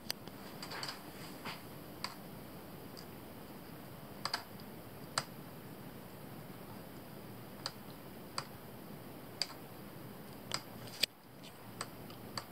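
Scattered single clicks of laptop keys and a mouse button, about a dozen at irregular intervals over a faint steady hiss.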